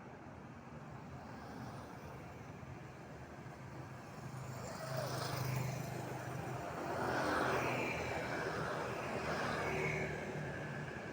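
Street traffic: vehicles passing by on a road, swelling louder about halfway through as two pass close.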